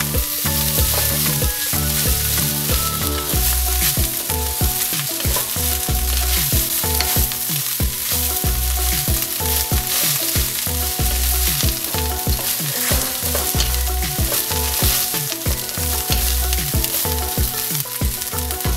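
Basmati rice sizzling in hot oil in a wok as it is stirred and tossed with a wooden spatula, a steady fizzing hiss broken by the spatula's strokes. Low background music notes run underneath.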